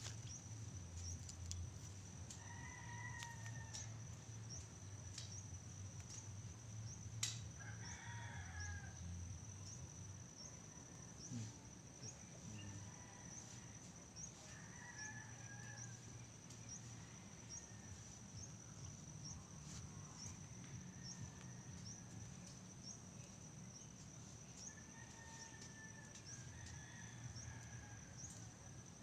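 Roosters crowing faintly, again and again every few seconds, over a steady high insect drone that ticks at a regular beat.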